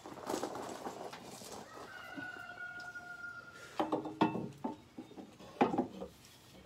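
Metal knocks and clanks as a muffler is worked onto a car's exhaust pipe, the loudest a little past the middle and again near the end. A rooster crows once, a single held call of about a second, about two seconds in.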